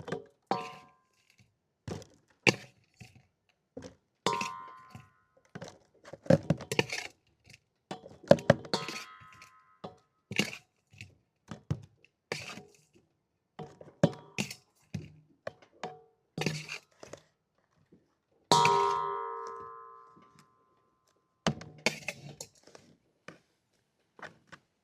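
An irregular series of hard knocks and clinks, many of them with a short ringing tone. One stroke about two-thirds of the way through rings on and dies away over about two seconds.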